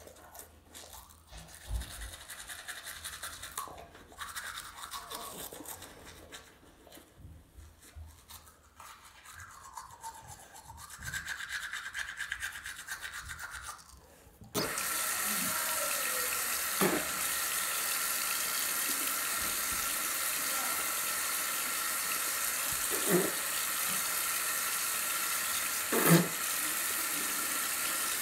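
Manual toothbrush scrubbing teeth in irregular strokes. About halfway through, a bathroom sink tap is turned on and water runs steadily, with a few brief knocks.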